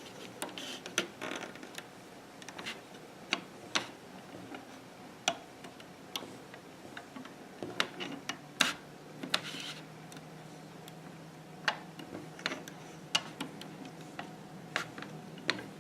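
Irregular small clicks and taps of a plastic hook working rubber bands off the pegs of a plastic Fun Loom while looping a bracelet. A faint low hum comes in about halfway through.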